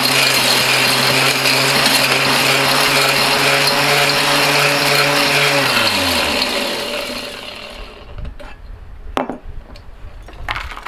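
Mighty Mill hammer-style ore crusher running under load, its motor humming steadily over the dense rattle of electronic connectors being shredded inside. It runs without bogging down. About six seconds in it is switched off and spins down, the hum dropping in pitch as it fades. A few sharp clicks follow near the end.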